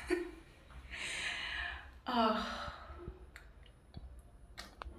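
A woman sighing from exhaustion: a long breathy exhale, then a voiced sigh falling in pitch. A few faint clicks follow.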